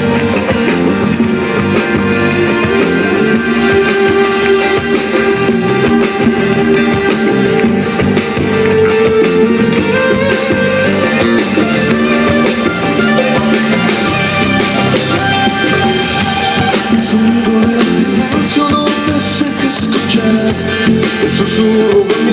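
Pop-rock band music with guitar and drums playing the song's instrumental introduction, without lead vocals.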